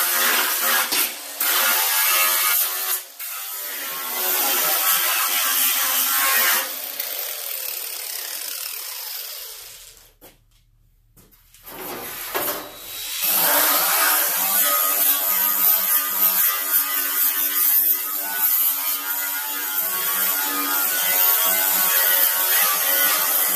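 Cordless angle grinder with a flap disc grinding a welded steel seam on a door patch panel, with a high motor whine under the grinding hiss. About ten seconds in it winds down and stops. It starts up again about three seconds later and grinds on.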